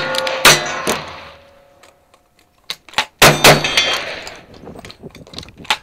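Revolver shots at steel targets, the steel ringing after each hit, two shots about half a second apart near the start. After a pause of about a second and a half while the shooter changes guns, lever-action rifle shots come about three seconds in.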